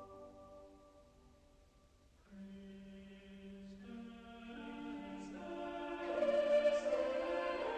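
Background choral music: a held chord fades away, then about two seconds in a choir enters on a low held note and builds up in layered sustained voices, growing louder toward the end.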